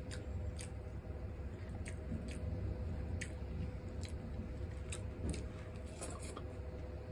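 Close-miked eating by hand: irregular wet clicks and smacks of chewing and of fingers squeezing rice and stew into a mouthful, over a steady low hum.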